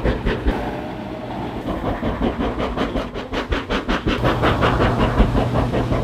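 Aqua-massage capsule running, its water jets pulsing rapidly and rhythmically under the mattress, several beats a second. A steady low pump hum joins about four seconds in.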